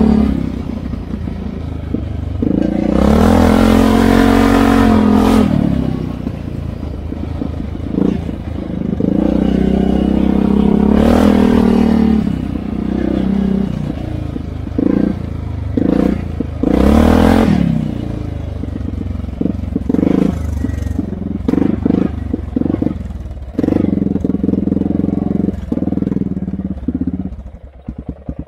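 ATV engine revving as it is ridden, with three long throttle surges whose pitch climbs and falls back, then a run of shorter throttle blips in the second half.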